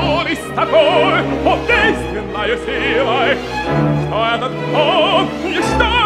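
Opera music: a tenor singing with wide vibrato over a full orchestra.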